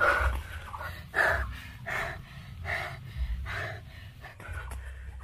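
A man breathing hard in short, quick puffs, about one a second, while straining to dig into a rotten stump with a stick.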